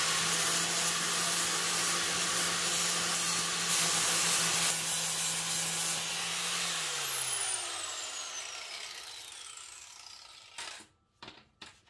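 Electric angle grinder with an abrasive disc scuffing the sheet-metal rear seat bulkhead, exposing the spot welds. The motor runs steadily at full speed, is switched off about seven seconds in and winds down with a falling whine, and a couple of light knocks follow near the end.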